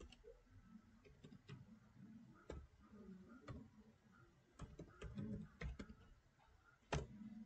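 Faint, irregular clicks of computer keyboard keys being typed, with one louder key press near the end.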